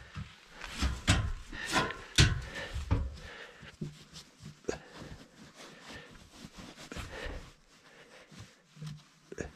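Mineral-wool insulation batts rustling and scraping against wooden floor joists as gloved hands push them into place. The handling is loudest in the first few seconds, with several knocks, then turns to softer rustles and taps.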